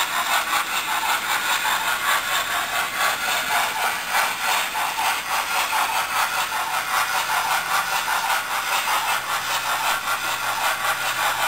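Steam-locomotive chuffing from the sound decoder of a Hornby 00 gauge DCC Duchess model, played through the model's small onboard speaker. A quick, even run of chuffs starts abruptly and keeps up a steady beat as the train runs.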